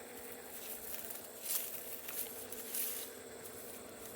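Grass and undergrowth rustling as it is pulled up by hand: a few brief scratchy swishes, about a second and a half in, just after two seconds and near three seconds.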